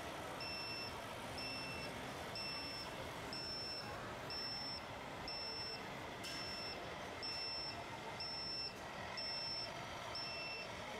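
Reversing beeper of an RC construction vehicle's sound module, beeping steadily about once a second, each beep short and high-pitched, over a steady outdoor hiss.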